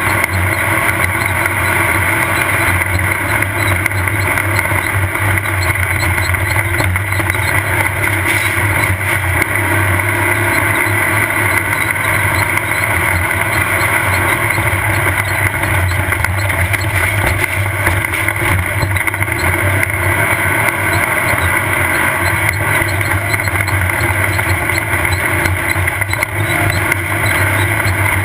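Off-road race car's engine running steadily under load at speed, heard from an onboard camera, with a constant hiss of wind and terrain noise over it.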